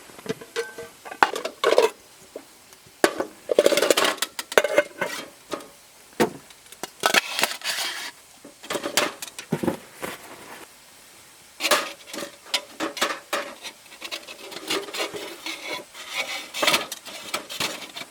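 Irregular clatter of hard objects being handled: many sharp knocks and clicks with short stretches of scraping and rubbing.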